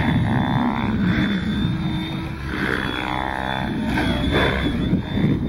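Radio-controlled model helicopter in flight, its rotor and motor whirring steadily, the pitch rising and falling in repeated sweeps as it manoeuvres.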